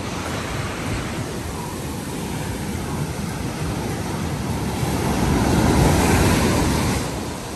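Ocean surf washing onto a beach, a steady rush of noise that swells to its loudest about six seconds in and then eases, with wind buffeting the microphone.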